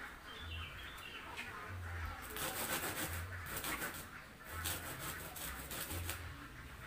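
Dry, bran-like duck feed being scooped with a plastic scoop and poured into a plastic bowl: a dry rustling and sifting that comes in two spells, a little after two seconds in and again after four and a half seconds.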